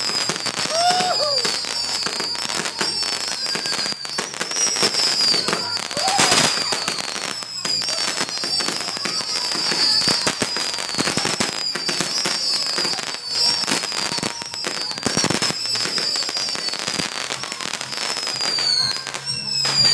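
Ground fountain firework spraying sparks: a dense, steady crackling with repeated short, high, falling squeals.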